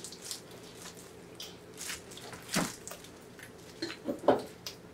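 Wet eating sounds: chewing and lip smacks over roasted pork belly and cold spicy noodles, with a few short louder wet smacks, the loudest near the end.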